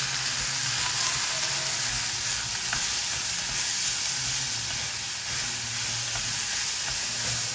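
Chopped vegetables sizzling in hot ghee in a small aluminium pressure cooker: a steady frying hiss. A wooden spoon stirring and scraping through them adds a few faint ticks.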